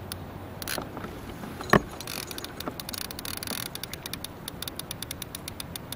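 Fishing reel clicking in a fast, even rhythm, about seven clicks a second, starting about two seconds in, with the rod loaded by a large sturgeon on the line. Just before the clicking starts there is a single sharp knock, the loudest sound here.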